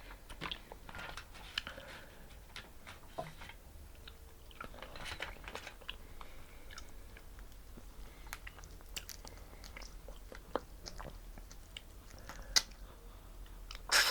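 Close-miked eating sounds of seafood: chewing and biting, with scattered short sharp clicks and wet smacks.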